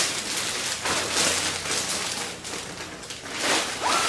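Drawer liners being handled and unpacked, giving a run of uneven rustling and crinkling bursts.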